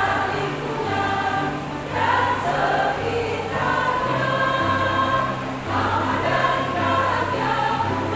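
A choir singing a song in parts over an accompaniment with a bass line that steps from note to note at an even pace.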